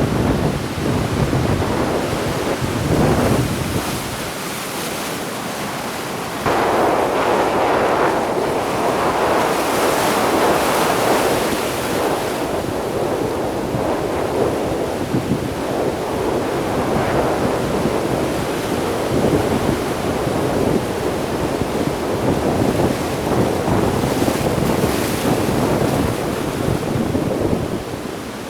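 Sea waves washing and breaking on the shore, with wind buffeting the microphone in low rumbling gusts. The surf grows suddenly louder about a quarter of the way in and keeps up a steady wash.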